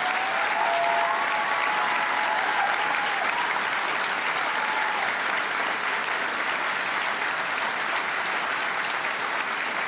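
Large audience applauding steadily, with a few cheering voices held over the clapping in the first five seconds.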